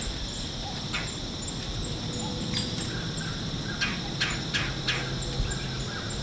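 Outdoor woodland ambience: a steady high-pitched hum with a few short, sharp bird calls scattered through it.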